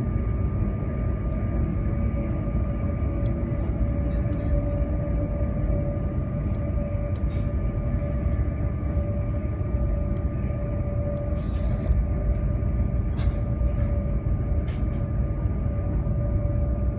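Cabin noise of a Harmony (CRH) high-speed electric multiple-unit train running at speed: a steady low rumble with a faint steady hum on top, and a few faint clicks.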